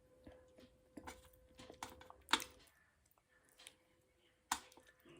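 Close-miked eating sounds: soft mouth clicks and chewing, with two sharper clicks, about two and a half seconds in and again near the end.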